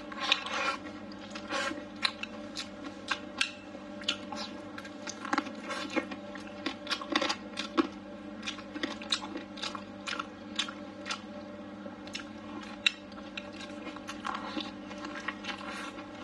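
Close-miked mouth sounds of a person chewing blistered tiger-skin green peppers and braised chicken wing: irregular wet crunches and smacks, a few a second. A steady low hum runs underneath.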